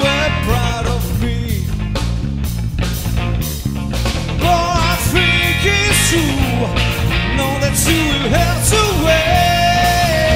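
Live rock band playing: an electric guitar solo with bent, sliding notes and one long held note near the end, over drums and bass.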